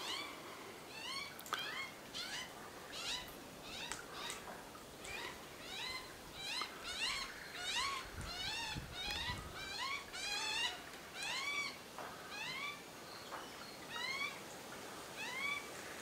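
Little corellas calling over and over at a feeder: short, upward-sliding calls, one or two a second, sometimes overlapping.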